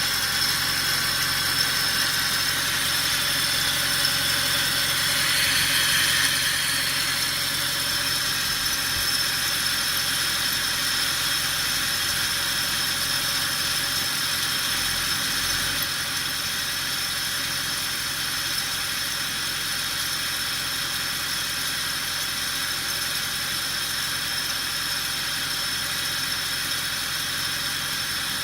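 Mercedes-Benz M156 6.2-litre V8 of a W219 CLS63 AMG running steadily, with a continuous jingling, rustling 'shara-shara' noise over the engine sound. The owner puts it down to play in the accessory-belt tensioner pulley.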